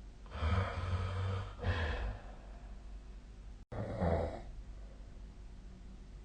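A sleeping person snoring: a long, noisy snoring breath with a low rumble, a shorter one right after it, and a third about four seconds in. The sound drops out for an instant just before the third.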